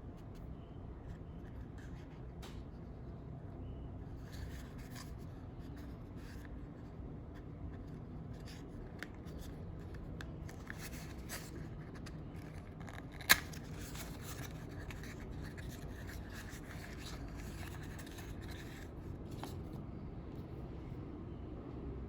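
Rustling, scraping and light clicks of a perfume box and its packaging being handled and opened, with one sharp click about thirteen seconds in, over a steady low background hum.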